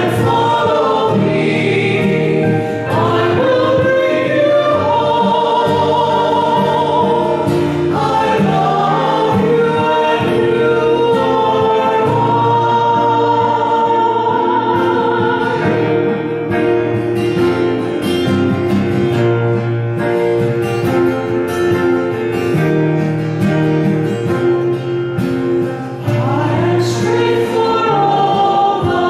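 A hymn being sung, with held, flowing vocal lines that carry on without a break.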